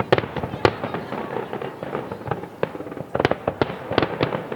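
Fireworks display: a quick series of sharp bangs from bursting aerial shells, the loudest near the start and again around three to four seconds in, with crackling between them.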